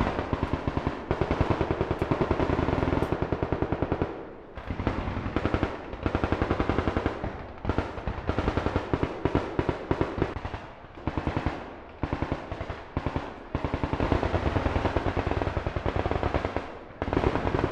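Rapid bursts of automatic gunfire, each lasting a second to several seconds, with short pauses between them.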